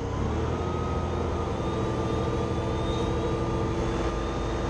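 Wirtgen asphalt milling machine's diesel engine running steadily. A high whine rises shortly after the start and then holds, as the hydraulics lower the machine toward the ground.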